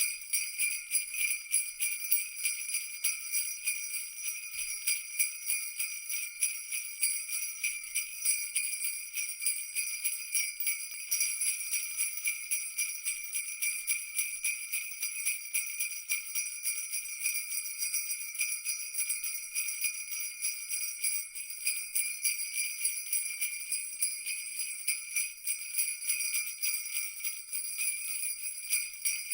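Jingle bells shaken continuously in a quick, even rhythm, a bright high-pitched ringing jingle.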